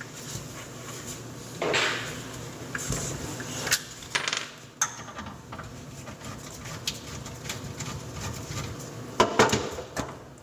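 Scattered metallic clinks, clatter and a few sharp knocks as tools and fittings are handled while a dishwasher drain line is unhooked from a garbage disposal. The loudest clatter comes near the end.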